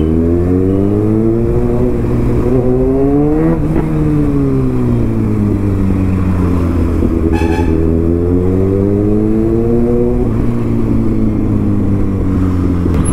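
Kawasaki Ninja ZX-6R inline-four engine accelerating, its pitch rising for a few seconds and then falling as the throttle rolls off. It does this twice. A short horn beep sounds about seven seconds in.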